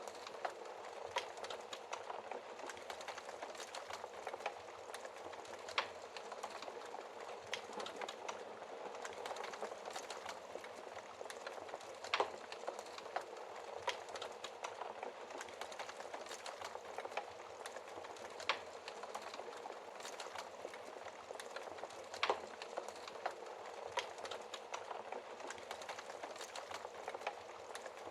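Wood fire crackling in a fireplace: a steady hiss of burning with constant small crackles and a sharper pop of the wood every few seconds.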